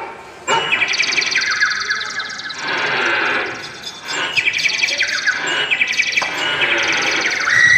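Rapid bird-like chirping trills in two long warbling phrases, with a high held whistle tone coming in near the end: a chirping sound effect from the stage music.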